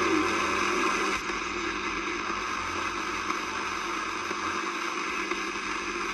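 R109T shortwave receiver hissing with 80-metre band static between transmissions, a steady rushing noise from its speaker; a low hum drops out about a second in.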